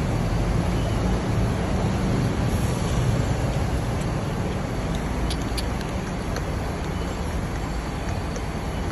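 Diesel engine of a double-decker bus running at low revs, a steady low rumble.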